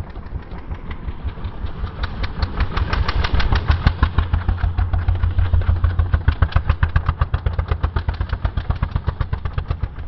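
Honda GX340 single-cylinder engine on a mini bike running at low revs, an even, steady beat of firing pulses that grows louder about two seconds in.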